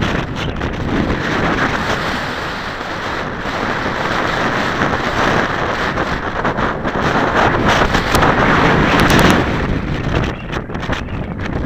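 Strong 20–30 mph wind buffeting the microphone: a loud, unbroken rushing noise that swells and eases with the gusts.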